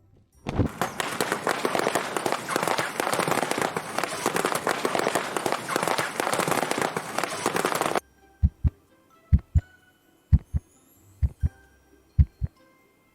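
Dense, rapid crackling that stops abruptly about 8 seconds in, followed by paired low thumps like a heartbeat, about one pair a second, over faint steady tones.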